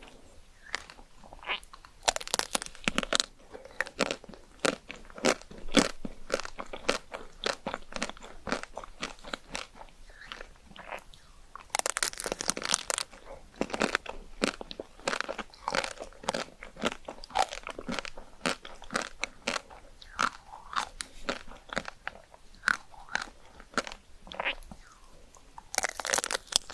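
Chocolate ice cream being bitten and chewed close to the microphone: a dense run of crisp, irregular crunches and wet chewing, several a second, with busier flurries of bites about 2, 12 and 26 seconds in.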